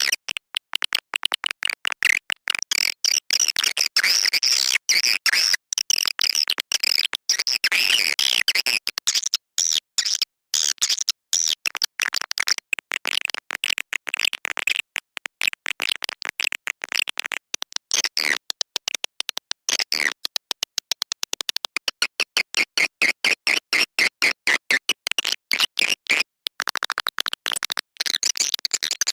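Swiftlet lure call recording: rapid, high-pitched chattering and clicking twitters of swiftlets in dense repeating phrases with brief gaps. It is the kind of call track played to draw swiftlets into a swiftlet house to roost and nest.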